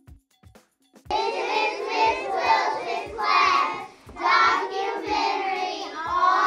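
A group of young children singing together over a steady beat. The singing comes in loudly about a second in.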